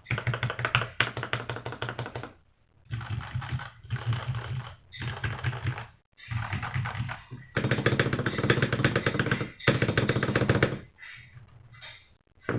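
Feker IK75 mechanical keyboard being typed on fast, its factory-lubed Gateron Milky Yellow Pro linear switches on an aluminium plate under knock-off GMK Botanical keycaps. It gives a rapid stream of keystroke clacks, broken by short pauses about two and a half, six and eleven seconds in.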